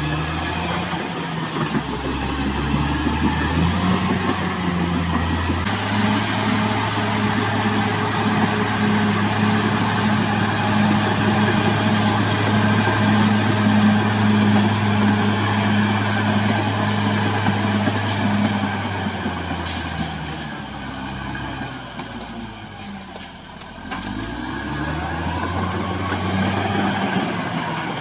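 CAT D6R XL bulldozer's diesel engine working under load. It revs up about six seconds in and holds its revs, with a faint high whine on top. Around twenty seconds in it eases off, then picks up again near the end.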